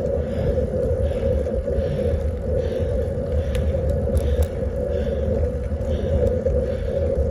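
Steady rumble of wind and tyre noise while riding a road bicycle, with a soft hiss that comes and goes a little under once a second.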